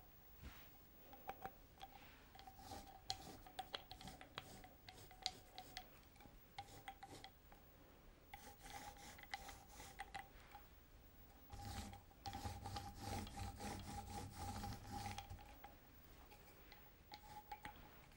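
Faint rubbing and rasping of a dampened foam paint roller loaded with silver gouache, rolled back and forth over pastel-covered paper in short strokes, louder for a few seconds about twelve seconds in.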